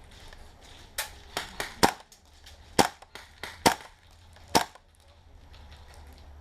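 Airsoft guns firing a run of about nine sharp single shots at an uneven pace, starting about a second in and ending a little before five seconds.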